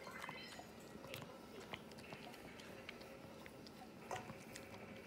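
Small dog eating from a stainless steel bowl: faint chewing with scattered small clicks, a cluster of them about four seconds in.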